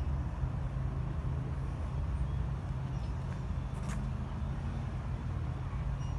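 Steady low outdoor rumble, with a single sharp click about four seconds in.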